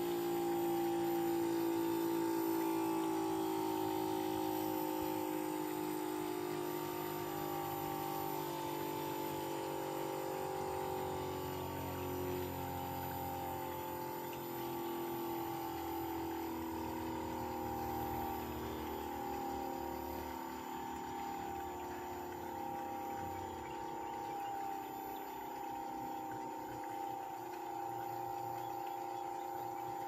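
Bosch inverter heat pump's variable-speed compressor running in defrost with the outdoor fan stopped: a steady hum whose pitch and loudness slowly ease down as the compressor ramps back down. A deeper hum beneath it drops away about three quarters of the way through.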